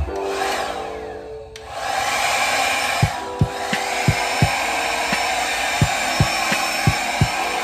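Handheld hair dryer blowing at the hot, highest-speed setting, a steady rush of air that dips briefly about a second and a half in, then returns. Background music with a regular beat plays under it.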